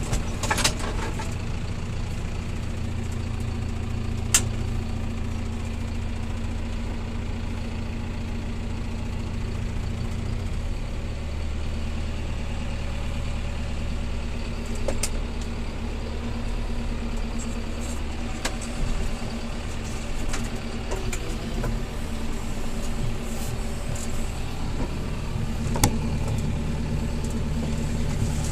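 Farm tractor's diesel engine running steadily while driving a mounted crop sprayer across a field, its low note dropping slightly about eleven seconds in. A few short rattles and knocks come through over it.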